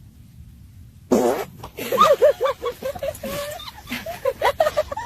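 A long fart: a loud blast about a second in, then a run of short sputtering blasts that waver in pitch.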